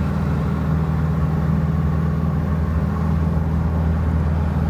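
Steady drone of a car at motorway speed heard from inside the cabin: engine and tyre noise holding an even low hum with no change in pitch.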